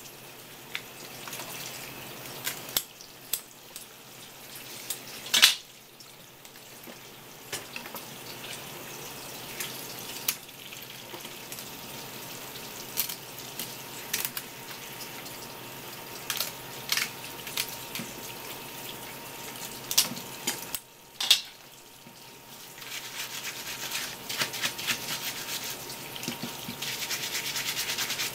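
Tap water running from a sprayer hose over a crab, with sharp clicks and snips of kitchen scissors cutting through the crab's shell and legs, the loudest a little after five seconds and again just past twenty. From about three-quarters of the way through, a stiff brush scrubs the shell under the water.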